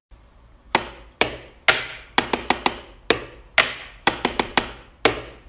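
Wall light switch flicked over and over in an uneven rhythm: sharp clicks, some single and some in quick runs of three or four, each with a short echoing tail.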